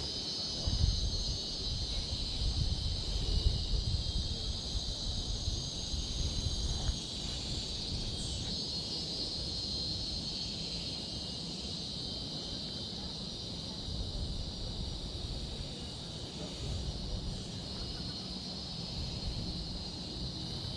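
Steady, high-pitched chorus of tropical forest insects, unbroken throughout. Low rumbling noise sits under it for the first several seconds.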